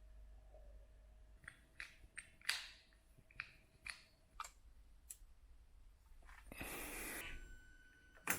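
A series of faint, sharp clicks and taps, about eight over three or four seconds, like small hard parts being handled, then a short rustle near the end.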